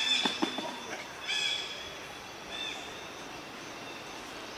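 Three short high-pitched animal calls, near the start, at about a second and a half and at two and a half seconds, with a few brief knocks near the start, over a steady forest background hiss.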